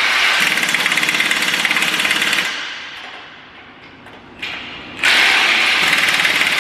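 Hand-held impact tool hammering rapidly in two bursts on a planter row unit. The first burst stops about two and a half seconds in, and the second starts about five seconds in.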